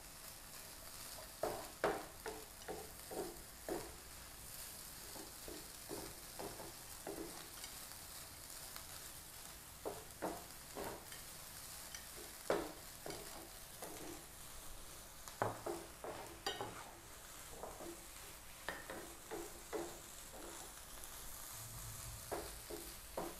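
Fried rice sizzling in a frying pan while a wooden spatula stirs and tosses it, with frequent short scrapes and taps of the spatula against the pan over a steady hiss.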